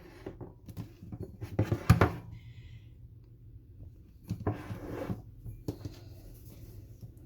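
Kitchen handling sounds as a bowl and towel-dried chickpeas are moved about on a counter: a few scattered knocks and clatters, the loudest about two seconds in, and a short rustle a little after halfway.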